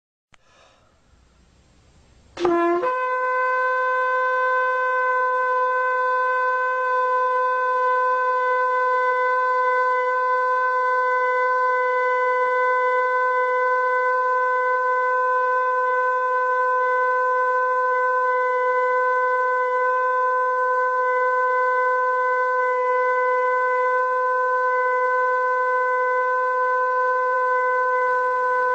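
A shofar (ram's horn) blown in one very long, steady blast. It starts about two and a half seconds in with a quick scoop up to the note, then holds that note unbroken.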